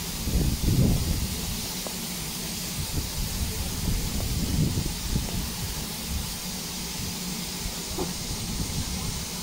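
Steady steam hiss from stationary saddle-tank steam locomotives standing in light steam, over an uneven low rumble.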